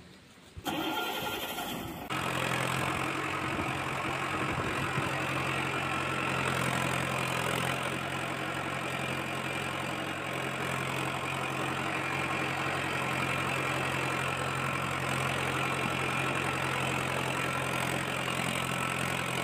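A tractor engine being cranked and starting under a second in, catching at about two seconds, then running steadily at an even pitch.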